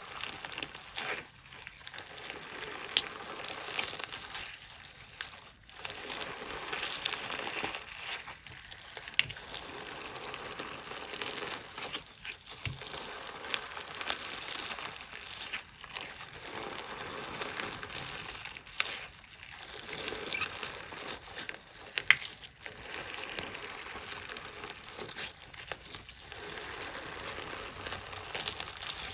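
Crunchy slime with stone-like pieces in it being squished and kneaded, giving a continuous crackle of many small pops and crunches. It comes in waves that ease off briefly every three to four seconds.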